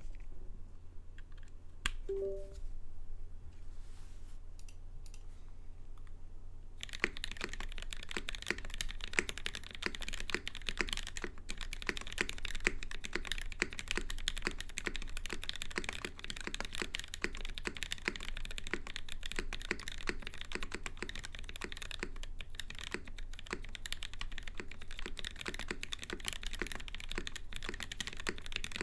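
Typing on a Perry MC65 top-mount mechanical keyboard with an aluminium plate, Gateron KS3 yellow switches lubed with Krytox 205g0, and GMK keycaps. A few scattered keystrokes at first, then steady fast typing from about seven seconds in, over a low steady hum.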